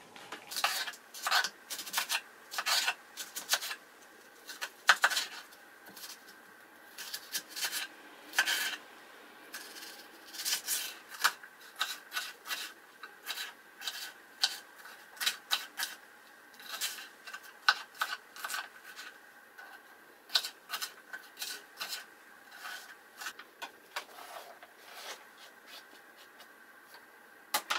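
A kitchen knife chopping an onion on a plastic cutting board: irregular taps and scrapes of the blade against the board. Near the start there is the papery rustle of onion skin being peeled off.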